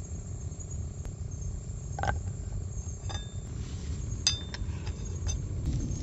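A metal spoon clinking against a metal frying pan several times while stirring melting butter and garlic, a few of the clinks ringing briefly, over a steady low rumble.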